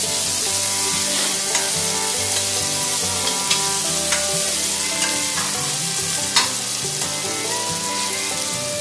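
Chopped onions frying in hot sesame oil in a pan, a steady sizzle, with a utensil stirring and a few sharp clicks against the pan, the loudest about six seconds in.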